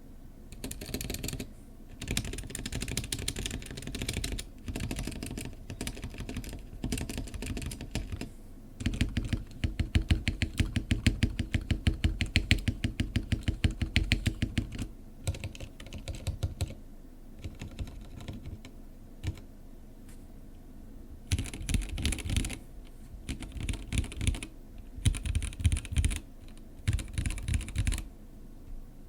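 Typing on a Womier K87 mechanical keyboard with unlubed Gateron Red linear switches and stock keycaps: bursts of keystrokes, then a fast, even run of louder strokes in the middle, a near pause with only a few strokes, and further bursts of typing toward the end.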